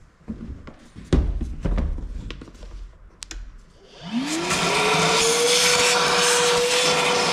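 A few knocks as the gear is handled, a loud one about a second in; then about four seconds in a shop vacuum starts, its motor whine rising quickly and settling into a steady run with rushing air as it sucks drill chips out of the transmission case.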